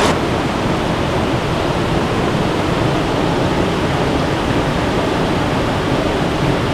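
Mountain stream water rushing steadily over rocks close by, a loud even rush.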